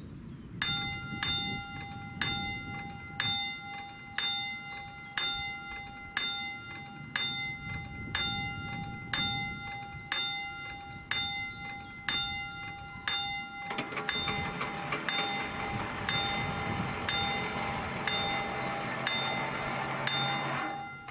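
Level crossing warning bell striking about once a second, each stroke ringing out, as the crossing warns of an approaching train. About two-thirds of the way through, a steady rushing mechanical noise joins it while the barrier boom lowers. Both stop near the end, once the boom is down.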